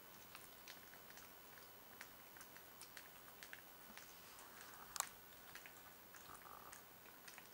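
Northern Inuit puppies eating wet food from a bowl: faint, irregular chewing and small wet clicks. One sharper click about five seconds in is the loudest sound.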